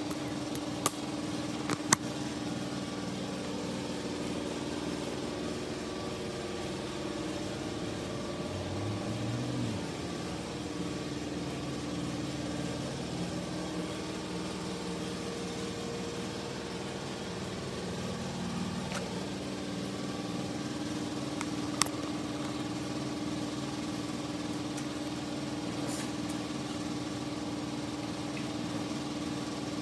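A workshop machine running steadily with an even, pitched hum. A few sharp knocks stand out over it near the start and once about two-thirds of the way through.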